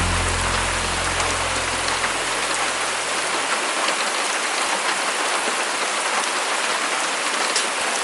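Heavy rain falling steadily, with scattered individual drops striking close by. The low notes of background music fade out in the first three seconds.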